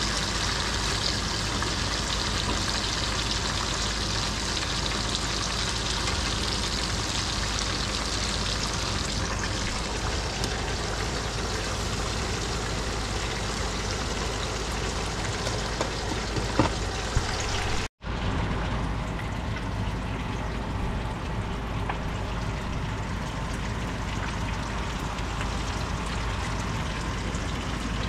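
Oil sizzling steadily as whole red snapper shallow-fries in a skillet. A couple of light knocks come about two-thirds of the way through, and after a brief break a duller steady hiss carries on.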